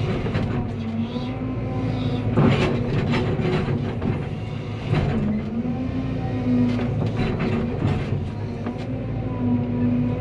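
Cat 320 excavator's diesel engine running steadily, its note dipping and recovering several times, with scattered knocks and clanks from the machine at work.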